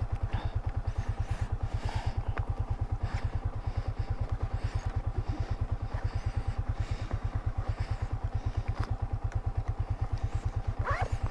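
Yamaha Vixion's single-cylinder four-stroke engine idling steadily at a standstill, its exhaust beats coming evenly and regularly at about eight or nine a second.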